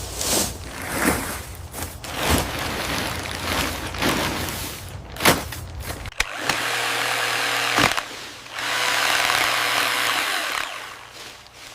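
Irregular knocking and scraping of clearing work, then a power tool runs in two steady bursts of about two seconds each, the second starting shortly after the first stops.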